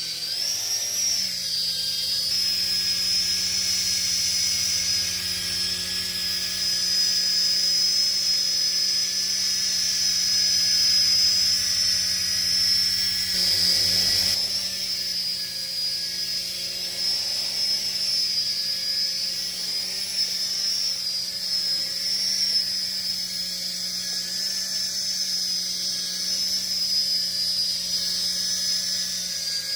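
Small electric motors and rotors of a DEERC SQN-040 toy RC helicopter running, giving a steady high whine over a low hum, the pitch wavering slightly.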